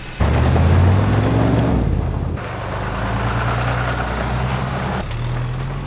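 Pickup truck engines running and pulling away. The first revs up with a rising pitch, then the sound changes abruptly twice to a steady engine note, as if it cuts from one truck to the next.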